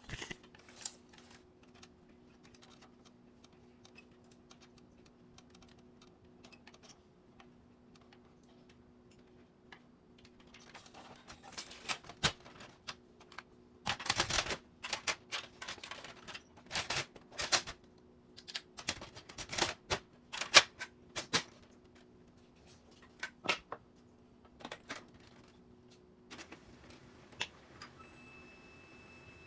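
Irregular clicks, knocks and clatter of hard plastic parts being handled on a laser printer, busiest in the middle, over a faint steady hum.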